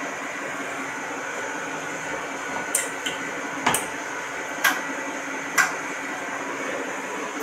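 Steady mechanical hum of a wax injection machine running, with four sharp clicks about a second apart in the middle.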